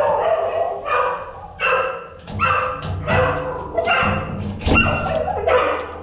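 Dogs barking and yipping excitedly, a short high cry about every 0.7 seconds: an excited greeting of their owner coming home.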